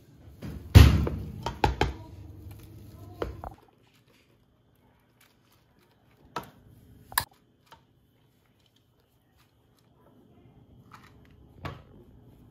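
Wire potato masher thudding and knocking against a steel pot while mashing boiled potatoes. The loudest thud comes about a second in and several more knocks follow over the next two seconds. After that there are only a few sharp clicks.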